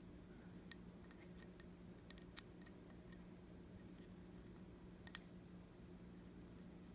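Near silence: a low steady hum with a handful of faint, scattered clicks from a small screwdriver and tiny screws being worked on an iPhone 8 Plus screen assembly.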